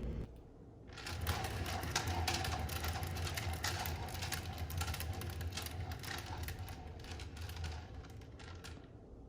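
Fast, dense mechanical clicking over a steady low hum, as of a metal mechanism being worked. It starts about a second in and fades near the end.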